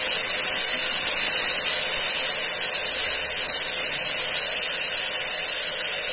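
Chopped vegetables sizzling in hot oil in a pressure cooker as they sauté: a steady, loud hiss.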